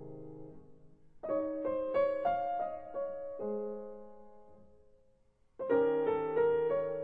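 Gentle piano music: a phrase of several notes starts about a second in and dies away, then a new phrase begins near the end.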